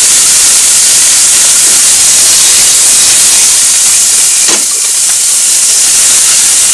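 Chicken thigh pieces in spice sauce sizzling in a steel frying pan over a gas flame, a loud steady hiss. About four and a half seconds in, a brief sound as the pan is tossed, and the sizzle drops slightly afterwards.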